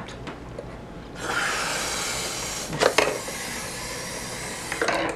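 Air hissing out of an inflated balloon through a drinking straw as it drives a bottle-built balloon car. The hiss starts abruptly about a second in, runs steadily for nearly four seconds, and cuts off near the end. There is a short knock midway through.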